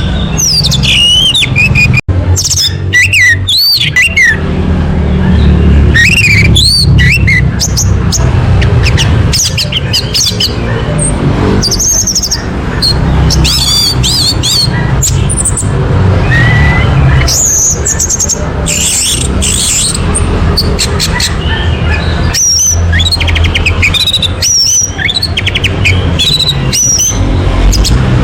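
Orange-headed thrush singing continuously in quick, varied phrases of gliding whistles and chirps, over a steady low hum.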